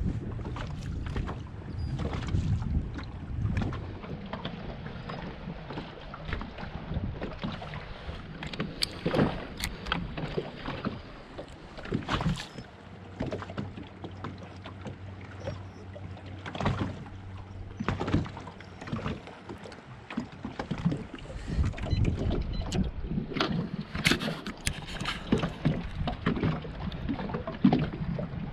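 Small waves lapping and slapping against a bass boat's hull, with scattered knocks, under a low rumble of wind on the microphone. A low steady hum sounds for several seconds in the middle.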